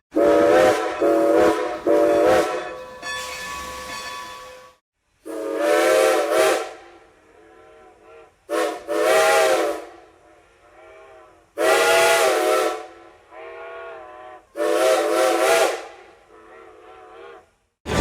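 Strasburg Rail Road No. 90 steam locomotive's whistle blowing a series of separate blasts: three short toots, then several longer blasts of about a second each, several notes sounding together, with fainter blasts between the louder ones.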